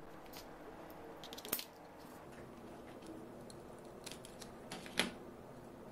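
Faint clicks of small parts being handled, then a sharp snap about five seconds in as a self-adjusting wire stripper clamps down and strips the insulation off a CPU fan's thin lead wire.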